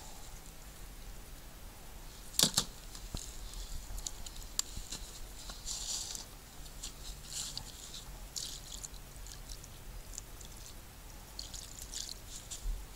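Scattered soft rustling and crackling from fishing gear being handled, with one sharp click about two and a half seconds in.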